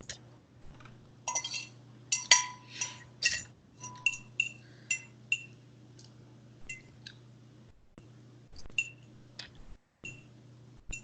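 Cutlery clinking against dishware while eating: a quick run of ringing clinks in the first few seconds, then scattered single clinks, over a steady low hum.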